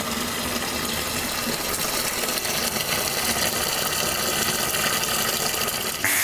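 Water draining from a bus radiator in a steady stream, splashing into a plastic tub below.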